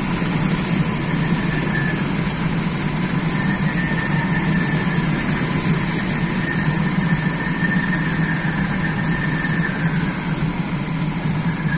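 Steady rushing airflow over a glider's canopy and fuselage, heard from inside the cockpit, with a faint high whistle that comes and goes over it.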